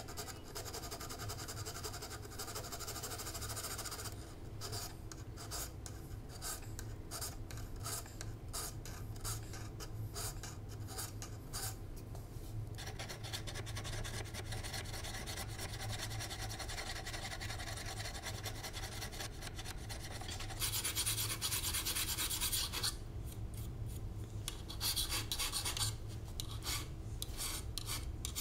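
A large Simonds multi-use file rasping back and forth across a hand-forged steel knife blade, cutting the bevels in steady repeated strokes. A louder stretch of about two seconds comes past the three-quarter mark.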